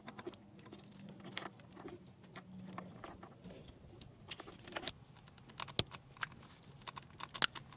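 Light clicks and rattles of plastic wiring-harness connectors for a MAP sensor adapter being handled and pushed together, with a sharper single click near the end.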